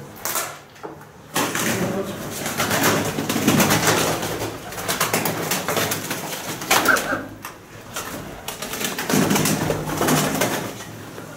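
Pigeons cooing, mixed with loud rustling and scraping noise that comes in two long stretches.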